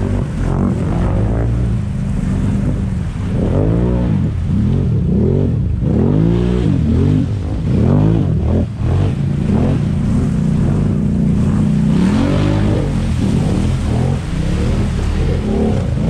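ATV engines revving up and down over and over while churning through deep muddy water, with water and mud splashing; the revving settles into a steadier drone in the last few seconds.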